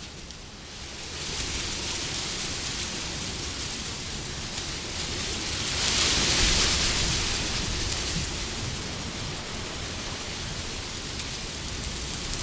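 Wind blowing as a steady rushing hiss that swells into a stronger gust about six seconds in, then eases back.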